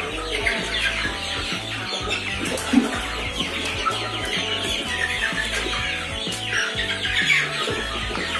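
A flock of about 50-day-old ayam kampung super chickens clucking and cheeping while they feed, many short falling calls overlapping, over background music with a steady bass line.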